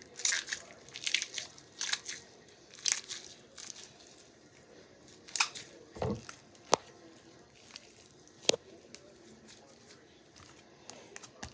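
Slime being pressed and worked, giving off soft sticky crackles and clicks, busier in the first few seconds, then a few sharp separate clicks.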